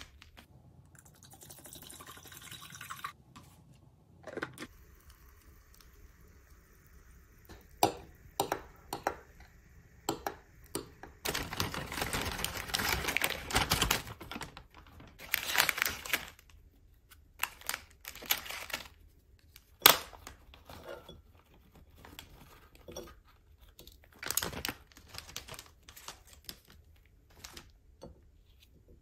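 Rustling and crinkling of a plastic snack packet and a paper carrier bag as snacks are unpacked and baked cheese sticks are tipped onto a plate, with scattered clicks and taps of things set down on a wooden table. The rustling runs longest in the middle, and a sharp tap comes about two-thirds of the way through.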